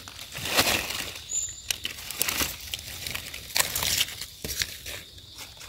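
Dry leaf litter rustling and crackling in irregular bursts as hands dig around and pick mushrooms from the forest floor, with one short high chirp about a second and a half in.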